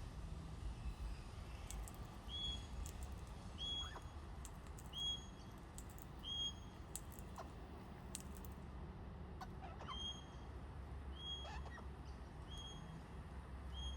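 A bird repeating a short, high whistled note at a steady pace, a little over once a second, pausing for about three seconds midway, with scattered sharp clicks and a low outdoor rumble.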